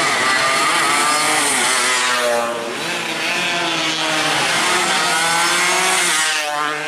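Two-stroke 116–125 cc underbone race motorcycles at high revs, several engines at once. Their pitch climbs, then drops as they pass and shift, about two seconds in and again near the end.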